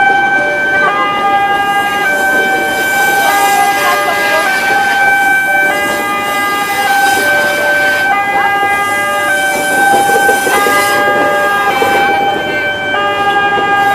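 Railway level-crossing warning alarm sounding a two-tone signal that alternates about once a second, showing the crossing is closed. Under it runs the rolling noise of a passenger train passing over the crossing.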